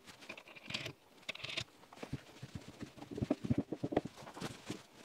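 Irregular light clicks and taps of a sight pusher tool being worked and handled on a pistol slide while a front sight is pushed sideways through its dovetail, with a brief scraping sound about a second in.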